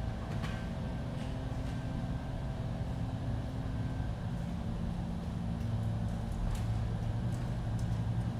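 Steady low machine hum, with its pitch shifting slightly a few seconds in, and a few faint clicks over it.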